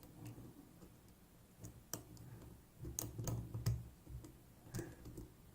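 Faint, irregular small clicks of a lock pick working the pin stacks of a six-pin pin-tumbler challenge lock under tension, with a cluster of louder clicks about three seconds in.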